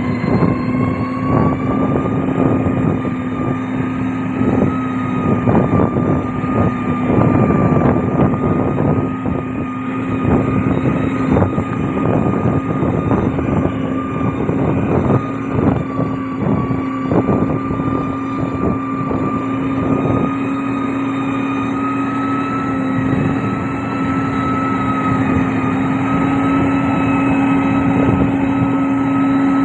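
Diesel engine of a heavy road-building machine running steadily at work, its pitch lifting slightly about a second in. Irregular crunching and knocking are heard over roughly the first twenty seconds.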